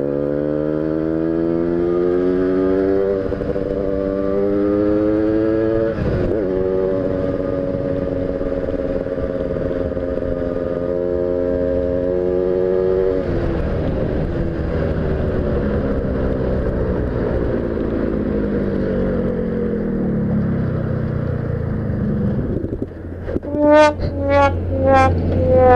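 Tuned motorcycle engine accelerating hard: its pitch climbs, drops back and climbs again twice in the first six seconds as gears are changed. It then holds at speed, eases off and slows after about 13 s, and the throttle is blipped in three quick, sharp revs near the end.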